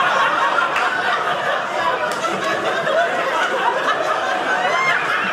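Studio audience laughing, a steady mix of many people's laughter that holds at an even level.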